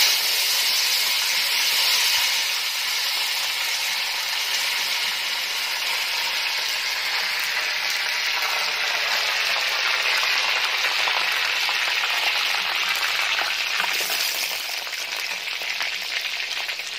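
Chopped greens frying in hot oil in a steel kadai: a loud, steady sizzle that starts suddenly as they go in and eases a little near the end.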